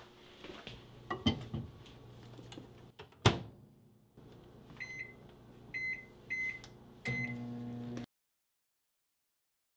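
Countertop microwave oven being set going: a loud thump as the door is shut, four short high keypad beeps, then the oven starts up with a steady low hum before the sound cuts out.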